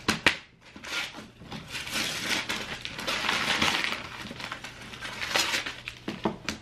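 Gift-wrapping paper tearing and crinkling as it is ripped off a large box: a few sharp rips, then a longer stretch of crackling in the middle.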